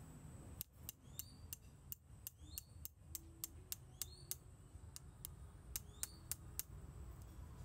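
Irregular sharp clicks, two or three a second, some with a brief rising chirp after them, over a faint steady low hum.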